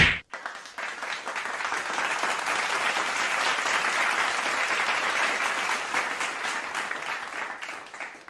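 A crowd applauding: dense clapping that swells up over the first second or two, holds steady, then thins and dies away near the end. It opens with a very short loud burst.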